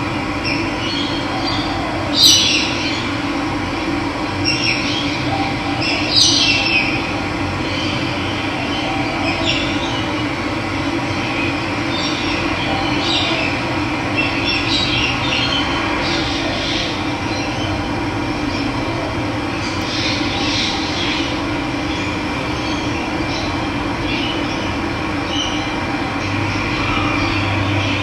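Running water rushing steadily, with birds calling now and then over it; the loudest calls come about two and six seconds in.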